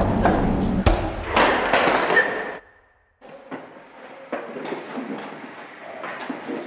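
Scuffling of a struggle, with a heavy thud about a second in, that cuts off abruptly partway through. Afterwards a much quieter background with a few light knocks.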